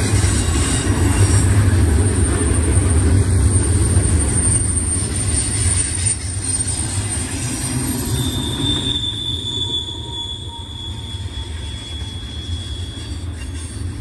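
BNSF double-stack intermodal train's well cars rolling past close by on curved track, a loud steady rumble of wheels on rail. A little past halfway a high, steady wheel squeal comes in over the rumble, typical of wheel flanges rubbing the rail on a curve, while the rumble eases slightly.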